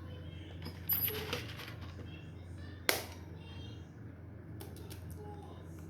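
Light clicks and clinks of tableware being handled, with a sharp one about three seconds in, over a steady low hum.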